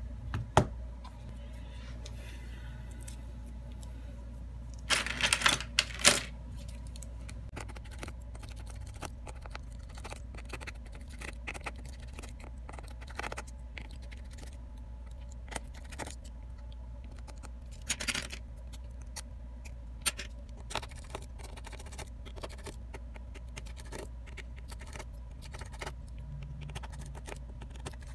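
Scattered small clicks and taps of a phone's plastic frame, back cover and parts being handled on a repair mat, with a louder rattling cluster about five seconds in and another around eighteen seconds. A steady low hum runs underneath.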